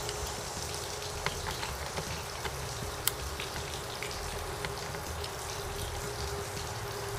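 Small scattered clicks and taps of a hand tool and plastic parts as screws are worked out of an outboard motor's timing-wheel cover and optical sensor assembly, one sharper click about three seconds in, over a steady background hiss and faint hum.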